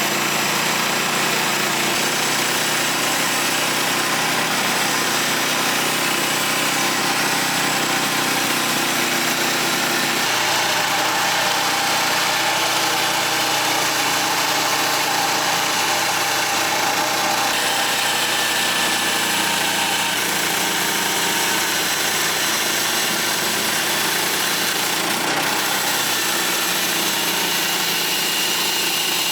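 Gas engine of a Woodland Mills HM126 portable band sawmill running steadily, its tone shifting about ten seconds in.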